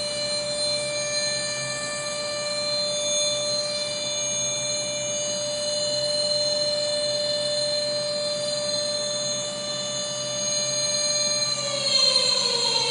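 Tornado siren sounding a steady, unbroken tone, then starting to wind down, its pitch falling, near the end.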